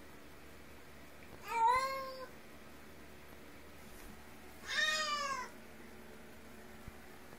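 Domestic cat meowing twice, two drawn-out meows about three seconds apart, each rising then falling in pitch.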